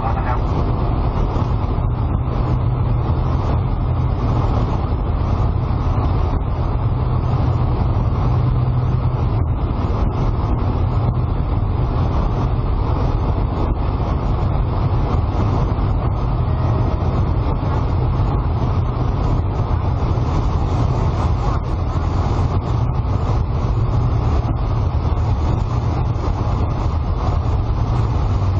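Light aircraft's piston engine running at a steady drone, mixed with loud rushing wind, heard inside the cockpit through a windshield broken by a bird strike.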